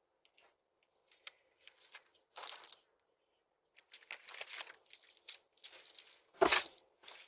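Faint rustling and crinkling in irregular bursts, with one louder thump about six and a half seconds in.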